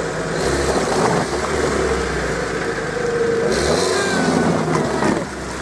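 Lada Niva's engine revving up and down under load as it churns through a deep mud hole, wheels spinning in mud and water.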